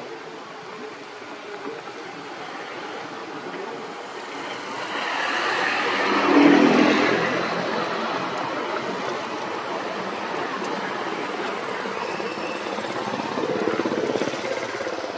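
A motor vehicle driving past: its engine noise swells to a peak about six and a half seconds in, then settles into a steady wash of noise, with a smaller swell near the end.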